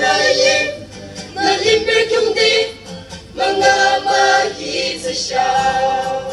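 A small mixed choir, mostly young women's voices, singing a slow song in unison in the Yimchungrü language, in phrases with short breaks between, accompanied by a guitar.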